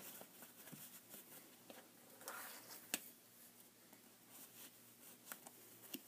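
Faint rustling and soft clicks of fabric strips being tugged and handled on a woven fabric tote, with one sharper tick about three seconds in.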